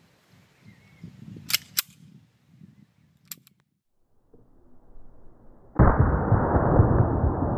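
Two sharp pistol shots close together about a second and a half in, then two fainter sharp cracks. Near the end a loud, steady rushing noise starts abruptly and runs on.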